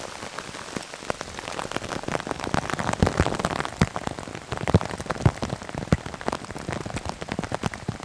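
Heavy rain falling on forest trees, a steady hiss with many loud, irregular drop taps striking close by.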